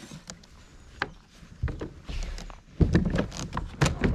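Knocks and bumps on a fishing kayak's hull and fittings as the angler moves and handles gear, irregular, with the heaviest bumps about three seconds in and again near the end.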